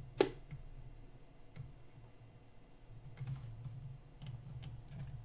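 Turntable being handled: a sharp click just after the start, then a few light clicks and taps over a low hum.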